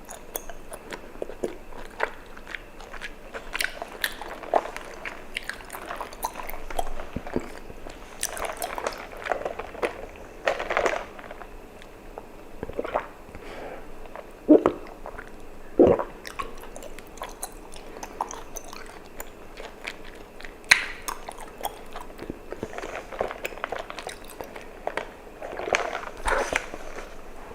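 Close-up mouth sounds of chewing tapioca pearls from bubble tea: an irregular run of wet, sticky clicks and smacks, with a few louder ones now and then.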